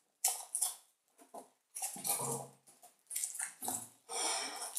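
Hands breaking open a chocolate Kinder Surprise egg: a string of short, irregular rustles and clicks with pauses between them.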